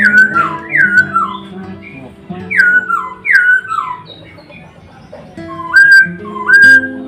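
Calm instrumental music with held chords under loud, clear bird whistles. Four stepped, falling whistled notes come in the first four seconds, then two rising whistles near the end.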